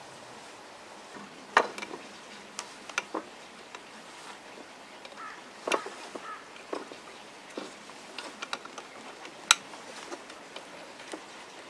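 Scattered sharp wooden clicks and knocks, a dozen or so at irregular intervals, from the parts of a hand-made ash-wood frame saw being handled and fitted together, over a faint steady outdoor hiss.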